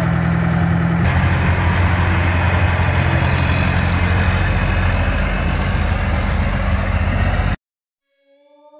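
Heavy truck engine running steadily, a low drone that changes character about a second in. It cuts off suddenly near the end, and music fades in.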